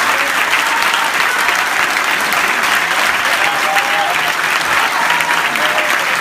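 Large theatre audience applauding steadily in a standing ovation, a dense even clatter of many hands clapping.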